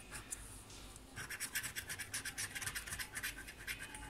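Rapid back-and-forth scratching on a paper lottery scratch card, rubbing off the silver coating to uncover the prize underneath. It starts about a second in.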